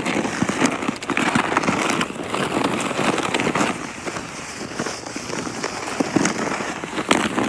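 Snow crunching and crackling as it is pushed and churned up, a dense run of small crunches.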